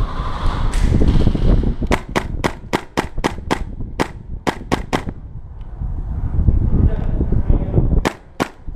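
Airsoft guns firing rapid single shots, sharp cracks in strings: a quick run of about eight shots about two seconds in, a few more around four to five seconds in, and a couple near the end, over low rumbling handling noise on the microphone.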